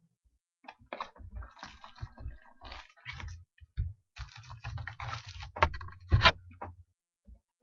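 Hands opening and handling a trading-card box and its packs: irregular rustling, crinkling and clicks with a few soft thuds, loudest around the sixth second.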